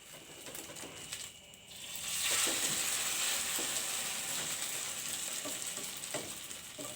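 An egg-and-noodle omelet frying in hot oil in a pan. After a couple of seconds of light clicks and scraping, the sizzle jumps up sharply as the omelet is flipped onto its raw side, then slowly eases off.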